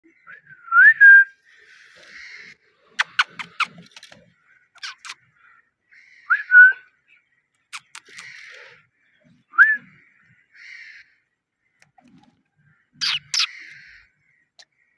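Parrot chirping: short rising whistles about three times, mixed with raspy chirps and clusters of sharp clicks, the loudest clicks coming near the end.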